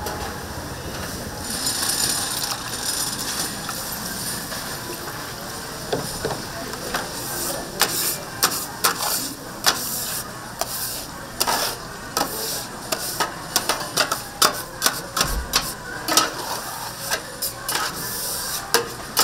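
Tteokgalbi (Korean grilled short-rib meat patties) sizzling as they cook, with many sharp clicks and knocks of utensils that grow frequent from about six seconds in.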